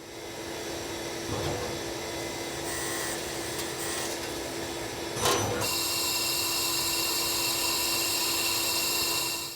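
A Citizen Cincom B16E CNC sliding head lathe running and machining, a steady mechanical whir with a constant hum. A little past halfway there is a brief clatter, and then a louder, higher-pitched whine joins in.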